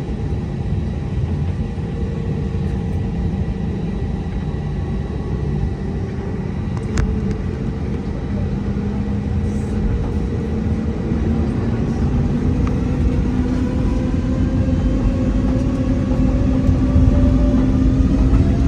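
Airbus A320neo jet engines running with a steady low rumble; over the second half a whine rises in pitch and the level climbs, typical of the engines spooling up.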